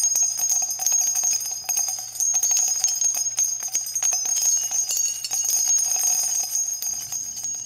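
Jingling bells: many quick, closely spaced strikes over a steady high ringing.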